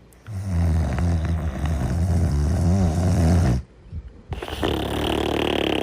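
Snoring in sleep: a long, low buzzing snore on the in-breath lasting about three seconds, then after a short pause a breathy, hissing out-breath.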